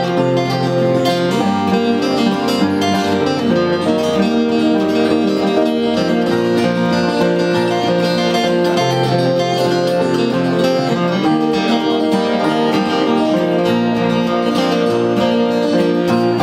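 Several acoustic guitars playing a song together live, strummed chords under picked melody lines, with the bass notes moving every second or so.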